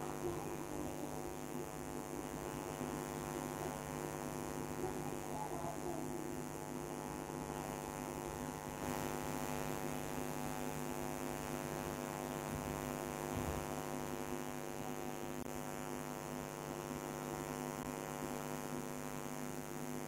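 Steady electrical mains hum with many evenly spaced overtones, unchanging throughout.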